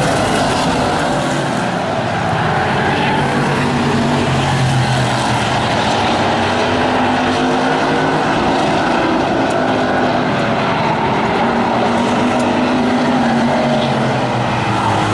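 Hobby Stock race cars running at speed around a paved oval, a steady loud engine noise from several cars whose pitch shifts as they go round.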